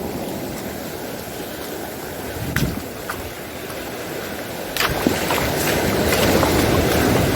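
Sea surf and wind rushing steadily, with wind buffeting the microphone, growing louder about five seconds in; a few sharp clicks or knocks sound over it.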